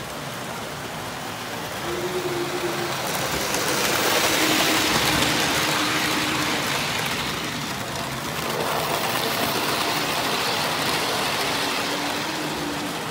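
Model train running past on tinplate track: a steady rattling rush of wheels on rails with a faint motor hum. It swells as the train passes close, about four seconds in, and again a little later.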